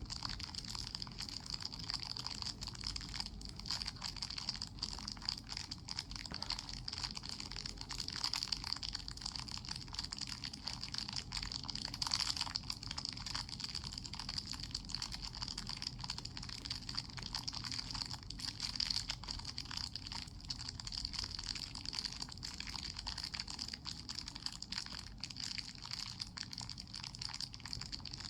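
Wood fire crackling, with many small irregular snaps over a steady hiss. A louder snap comes about twelve seconds in.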